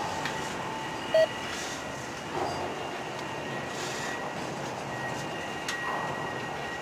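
Freight work train rolling slowly in reverse, shoved by its locomotives: a steady rumble of cars and wheels on rail, with a faint steady high whine. A short loud beep sounds about a second in.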